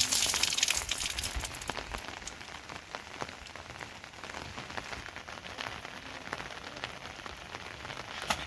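Rain falling, with many separate drops ticking close by and one sharper tap near the end.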